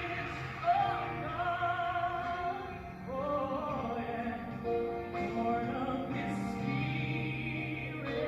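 Sung music: a voice holding long notes with vibrato over instrumental accompaniment, typical of a church solo or choir song.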